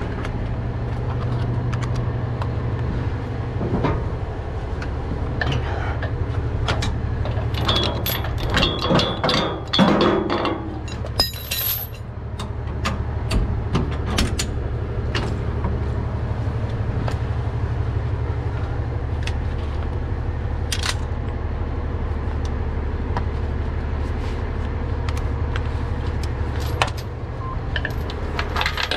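A truck engine idles steadily under the metallic clinking and rattling of tow chains and wheel-lift hardware being handled. The rattling is heaviest in a burst about a third of the way in and picks up again near the end.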